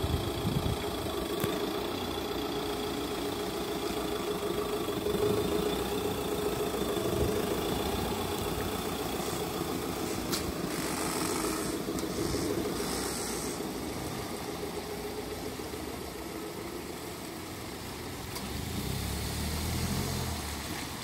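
Elddis CV20 campervan's engine running as the van pulls out of a driveway and drives slowly away along a wet road, with a brief hiss about halfway through and a swell of low rumble near the end.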